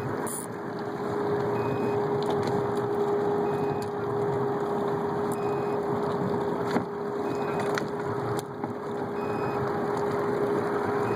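A motor runs steadily, a constant hum over a rushing noise, with a faint short high beep repeating about every two seconds.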